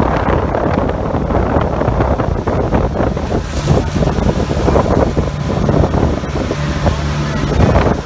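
Wind blowing hard across the microphone aboard a motorized outrigger boat under way, with the boat's engine droning steadily underneath.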